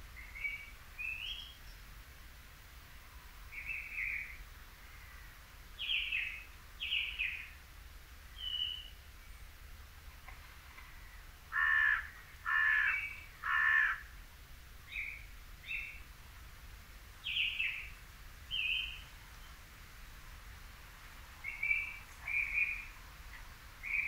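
Song thrush singing: short, varied phrases separated by pauses, with one loud phrase repeated three times in quick succession about halfway through.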